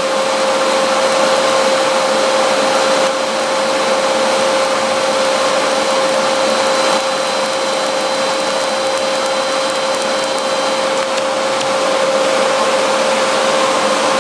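Primeweld TIG 225X TIG welding steel: a steady hiss with a constant tone running through it, dipping slightly in level a couple of times.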